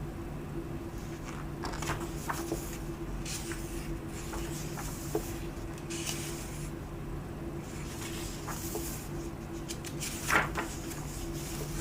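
Pages of a book being turned by hand: soft paper rustles and light taps now and then, the sharpest about ten seconds in, over a steady low hum.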